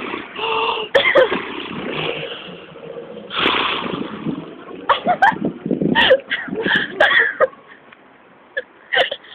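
People making silly vocal noises with their mouths and breath: wheezy, sneeze-like blasts of air, then a run of short squeaky calls that slide up and down in pitch about halfway through.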